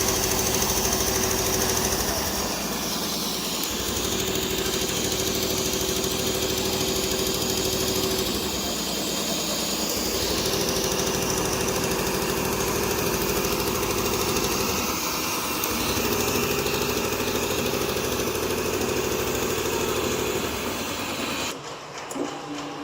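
Richpeace computerized perforation machine running, its head punching in rapid steady strokes while a motor tone shifts pitch every few seconds; the machine stops near the end, leaving a lower hum.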